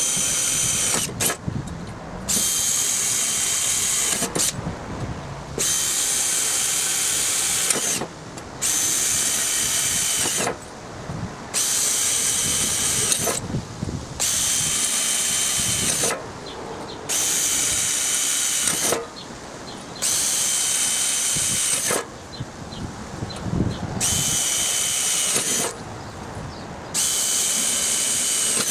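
Makita cordless drill boring small pilot holes through rusty steel plate, running in a dozen or so short runs of one to three seconds, each stopping as a hole breaks through, with brief pauses between.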